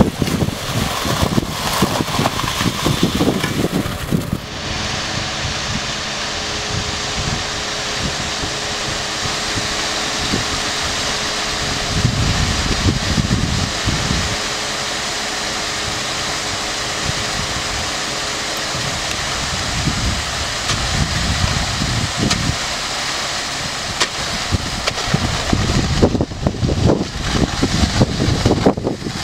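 Concrete mixer truck's diesel engine running steadily, with wind gusting on the microphone. The engine sound settles in about four seconds in, after a stretch of mostly wind.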